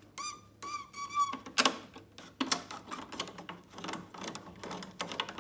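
Screwdriver undoing the screws on an oscilloscope's metal back cover: two short squeaks of a screw turning in its thread near the start, then a run of light metallic clicks and rattles.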